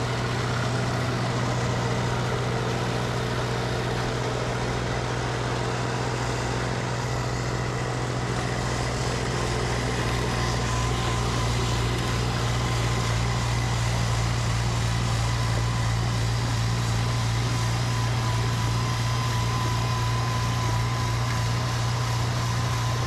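Tractor engine running at a steady speed while driving a snowblower off its PTO, a constant low hum with no revving; a faint steady whine joins about halfway through.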